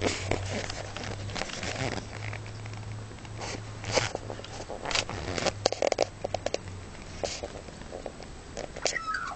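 A pet chewing and tearing at grass: irregular crisp crunches and snaps. A low steady hum underneath stops about seven seconds in, and a short high chirping call comes near the end.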